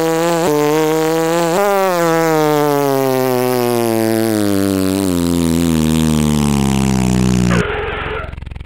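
Truck engine sound effect for a tow truck, running and then winding steadily down in pitch as the truck slows to a stop. It breaks off about seven and a half seconds in with a short hiss, leaving a low idle hum.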